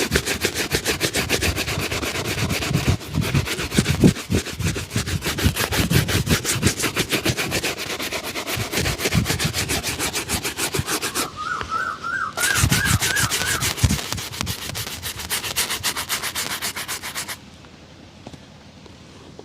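Rapid back-and-forth brushing strokes on a shoe with a shoe-shine brush, buffing the polish. The strokes run fast and even, pause briefly just after the middle, resume, then stop near the end.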